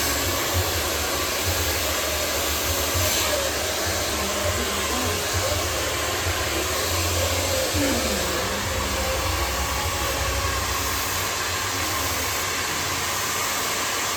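Handheld hair dryer running steadily: an even rush of blown air with a low motor hum underneath.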